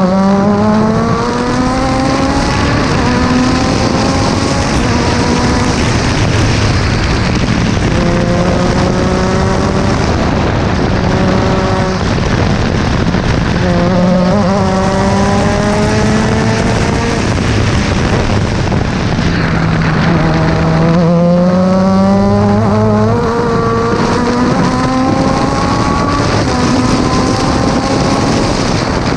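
Formula 3 race car engine heard from the cockpit, revving hard and climbing in pitch again and again, with a quick drop at each upshift. The revs fall low about two-thirds of the way through as the car slows for a corner, then climb through the gears again, over steady wind rush.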